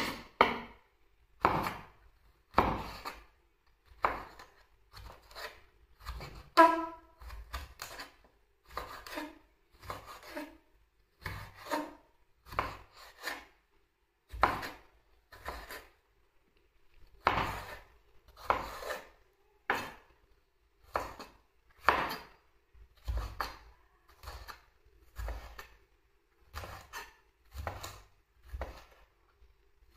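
Food being cut by hand with a knife: irregular strokes, roughly one a second. A short pitched sound is heard about six and a half seconds in.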